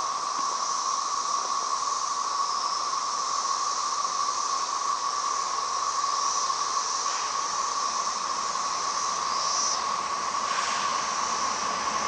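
Chorus of many cicadas: a steady, unbroken high-pitched drone with a hissing layer above it.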